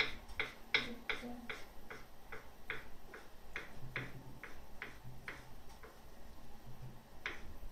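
Kitchen knife cutting a boiled carrot on a wooden cutting board: a steady run of crisp cuts, about three a second, with a short pause about six seconds in.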